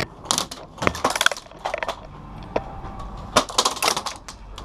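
Bursts of airsoft fire: clusters of rapid sharp clicks and snaps, in three bursts, loudest a little after one second and again from about three and a half seconds in.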